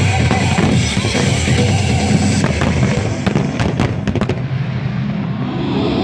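Fireworks display crackling and popping, with a dense run of crackles in the middle, over loud music.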